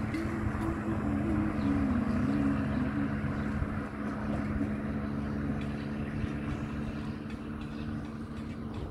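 Motor vehicle on the road: a steady engine hum with road noise, the engine note wavering during the first few seconds.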